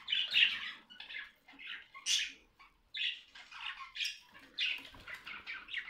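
Budgerigars chattering: short, scratchy squawks and chirps coming in irregular bursts, a few each second.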